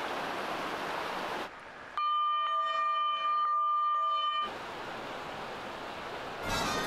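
A steady, even-pitched tone lasting about two and a half seconds, starting about two seconds in, set between stretches of even background hiss.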